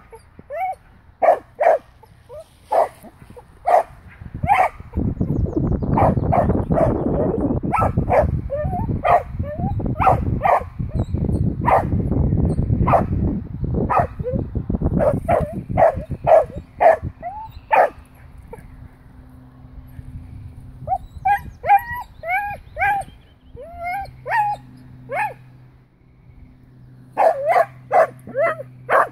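Dachshund barking at a wild boar through a fence: short, sharp, high barks repeated about once or twice a second, with a dense rough noise underneath for several seconds in the first half.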